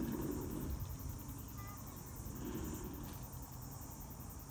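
Steady high-pitched insect chirring, with faint murmured voices about the start and again midway.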